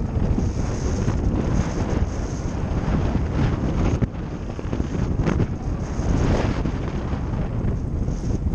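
Wind buffeting the microphone of a Zero FX electric motorcycle rider while riding, mixed with the tyres running over a rough dirt trail. The bumpy, fluttering noise has no engine note, as expected from the near-silent electric motor.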